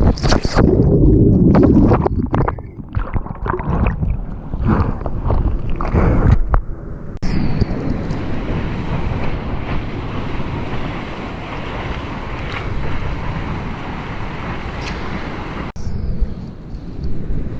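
Ocean surf and wind buffeting the microphone. For the first several seconds there is loud, irregular splashing and rushing water. Then it cuts suddenly to a steady rush of wind and surf.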